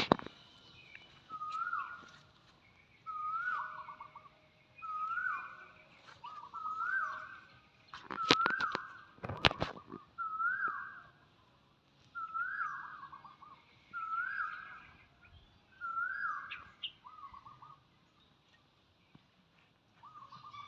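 A bird calling over and over, about ten similar calls, each a short whistled note that rises and then falls away, spaced under two seconds apart. Two sharp knocks come about halfway through.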